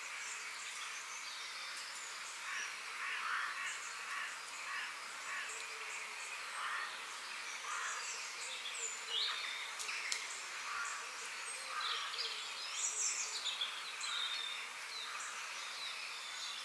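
Forest ambience: many birds chirping and calling in short, overlapping notes over a steady background hiss, likely insects.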